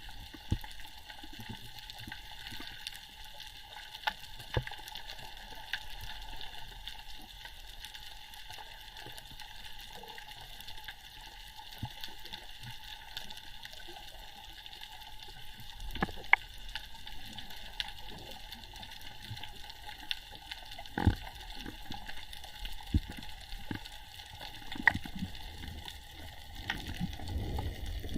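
Underwater water noise while freediving: a steady hiss peppered with sharp clicks and crackles, a few louder knocks in the second half, and the water sound swelling near the end.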